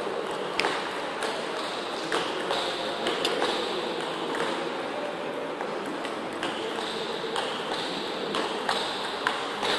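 Table tennis rally: the celluloid-style plastic ball clicking sharply off the rackets and the table, at irregular intervals of about half a second to a second. A steady room hum runs under it.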